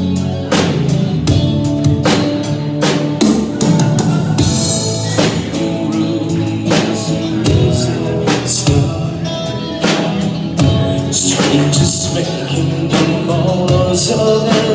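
Live band playing a song with a drum kit keeping a steady beat under bass and other pitched instruments, with cymbal crashes about four, eight and eleven seconds in.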